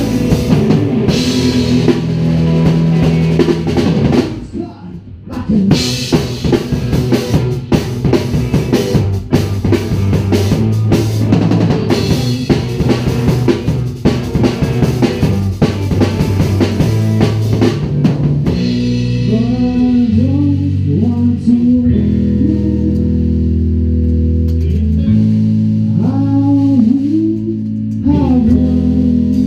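Live band playing: electric guitars over a drum kit. The drums beat hard with a brief break about five seconds in. From about eighteen seconds on the drumming thins, and sliding, bending notes come forward over a steady low line.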